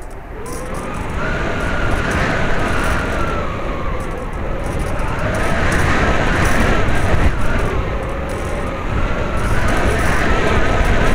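Electric FPV plane's brushless motor and propeller heard from the onboard camera, whining in flight with the pitch rising and falling as the throttle changes, over heavy wind rush. The whine starts low and climbs over the first couple of seconds, then keeps wavering.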